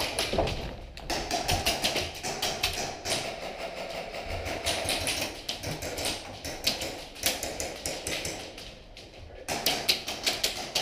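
Airsoft guns firing in rapid volleys of sharp cracks, with BBs clattering on walls, in several bursts.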